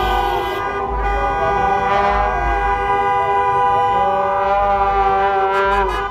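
Several car horns honking at once, held long and overlapping, in a steady loud din of celebratory honking from passing traffic.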